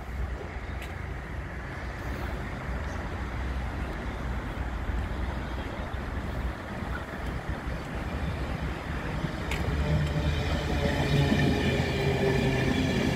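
LNER Class 91 electric express train approaching and coming alongside the platform, a steady low rumble of wheels on rail that grows louder over the last few seconds, with steady tones coming in as the coaches rush past.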